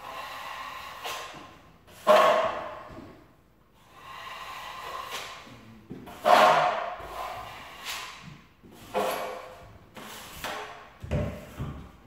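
Drywall skimming blade scraping joint compound over a butt joint in repeated strokes of one to two seconds, two of them sharply louder, with a few low knocks near the end.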